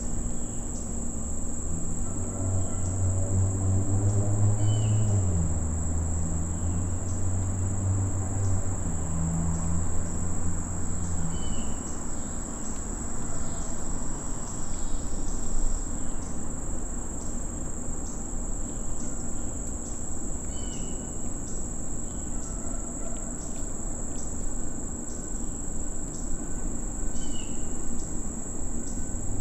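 Steady, high-pitched insect chorus of crickets or katydids in late-summer woods, running through without a break. A short chirp recurs every few seconds. For the first ten seconds or so a low hum swells and then fades.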